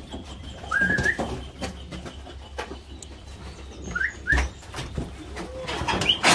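Birds calling around a cattle corral: short rising chirps and a low coo, over scattered knocks and clatter with one heavier thump about four seconds in.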